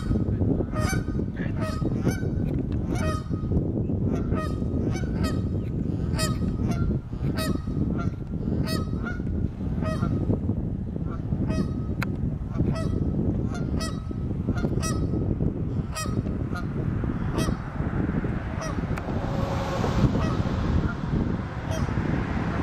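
Canada geese honking over and over in short calls, about two or three a second, over a steady low rumble. The honking stops about seventeen seconds in and a hissing noise rises.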